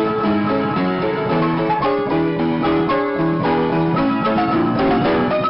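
Background instrumental music on plucked strings: a guitar-like picked melody moving steadily from note to note.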